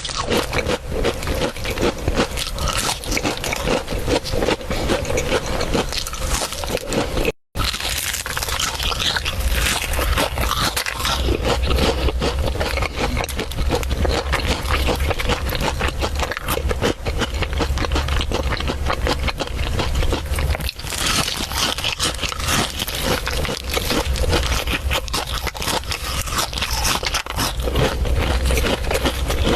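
Close-miked crunching and chewing of crispy food: a dense, unbroken crackle of bites and chews. It cuts out for a moment about seven seconds in.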